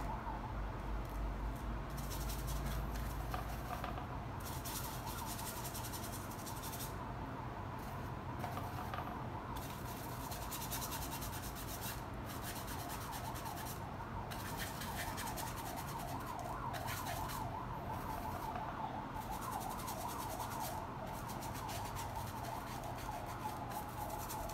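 Paintbrush bristles rubbing and dabbing acrylic paint onto a canvas board in short, repeated strokes, with a faint wavering tone running steadily in the background.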